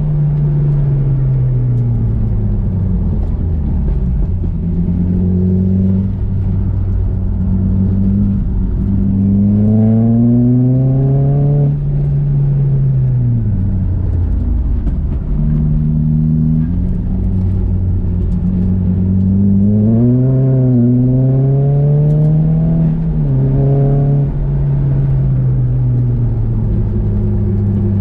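Nissan Juke's engine under hard track driving: the engine note climbs steeply under acceleration, then drops back sharply when the throttle comes off, several times over.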